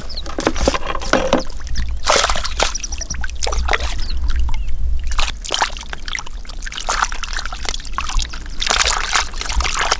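Shallow muddy water splashing and sloshing as hands scoop through it and fish thrash in it, in many irregular short splashes.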